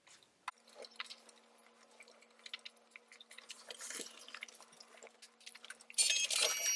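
Soft, scattered button clicks over a faint steady hum. About six seconds in, a louder stretch of several high steady tones with clicks begins.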